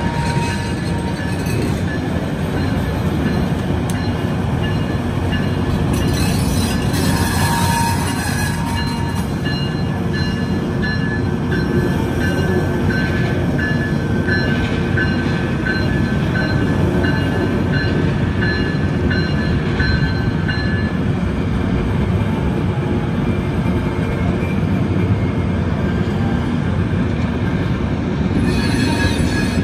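Loram rail grinder train moving along the track: engines and wheels rumbling steadily, with thin high squealing tones coming and going through the middle stretch.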